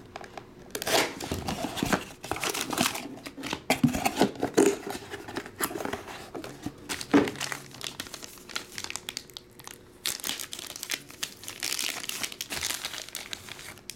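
Packaging being opened by hand: a cardboard box's seal slit with a blade, the box lifted open, and plastic wrapping crinkled and torn off a card, in irregular rustles and crackles.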